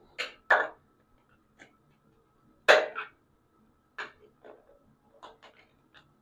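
Short scrapes and clicks of a small hand tool prying at a part inside a shower head, with two louder scrapes about half a second and nearly three seconds in and lighter ticks between.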